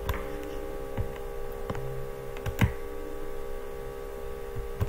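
Steady electrical mains hum, with a few scattered computer keyboard key clicks.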